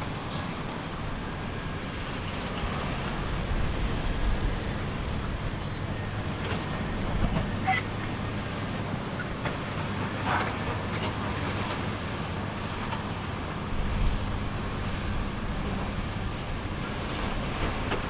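Komatsu D85 crawler bulldozer's diesel engine running steadily under load as the blade pushes earth, with clatter and occasional clanks from the steel tracks. The engine grows louder about fourteen seconds in.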